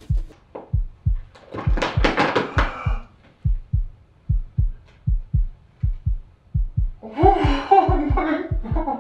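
Fast, steady heartbeat sound effect of low thuds, with a loud crinkle of a plastic water bottle being sat on about two seconds in and a brief muffled voice near the end.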